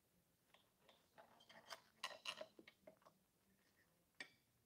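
Faint clinks and scrapes of a metal knife and fork against a ceramic plate as a donut is cut, busiest in the middle, with one sharper click near the end.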